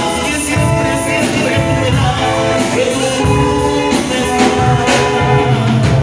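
Live band music through an SP Pelican PA system with one subwoofer per side: electric bass, electric guitar, keyboards and drum kit playing with a singer, loud and steady with a strong bass.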